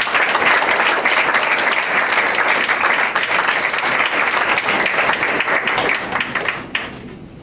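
Audience applauding, many hands clapping together; the applause thins out and dies away near the end.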